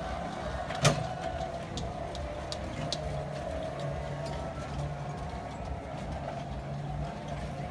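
Small ride-on go-kart running with a steady motor hum, with a sharp click about a second in.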